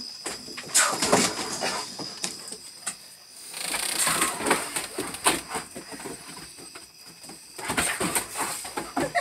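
Large dogs playing rough on a wooden porch deck: irregular scrabbling, thumps and knocks of paws on the boards, with animal noises mixed in.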